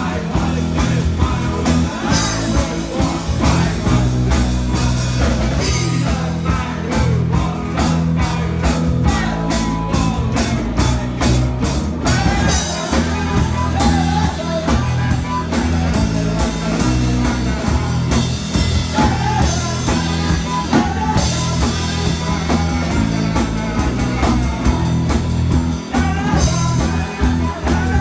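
Live rock band playing: electric guitar and drum kit with men singing into microphones, the drums keeping a steady beat.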